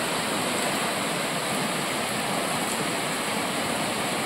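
Steady rain falling, an even hiss of water with no let-up.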